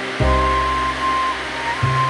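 Background music of held notes, with a new bass note coming in about a fifth of a second in and again near the end, over a steady rush of flowing stream water.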